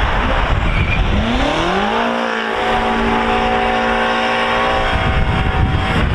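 BMW M car engine revving up over about a second and then held at steady high revs for about three seconds before it drops away, over a steady rushing noise.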